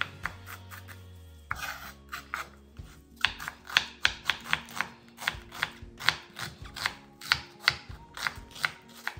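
Knife chopping on a cutting board, quick strikes that settle into a steady pace of about three to four a second a few seconds in, over background music.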